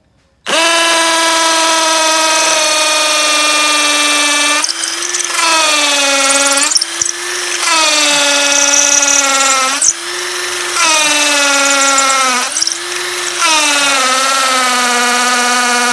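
INGCO CIDLI20025 20 V cordless impact drill running in impact (hammer) mode, an 8 mm masonry bit boring into a concrete wall. It gives a loud, steady whine that starts about half a second in, and its pitch sags and recovers about four times as the bit is leaned on.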